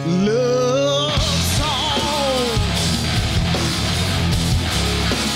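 Live rock band playing: electric guitar, bass and drums. It opens on a single rising note, and the full band comes in about a second in.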